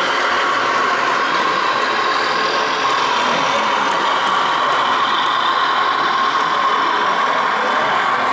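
Radio-controlled model truck running with a steady, even engine-like hum as it manoeuvres with a flatbed semi-trailer.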